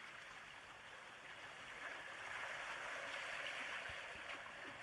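Soft running water, a steady hiss of flow that swells slightly in the middle, with a few faint ticks.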